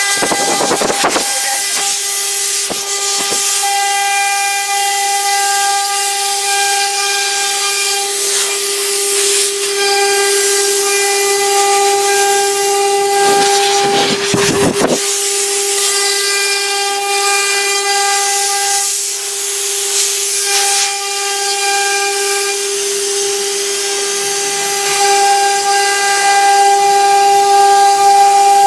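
CNC router spindle running at a steady high whine over a hiss, cutting MDF, with a few short rushes of harsher noise.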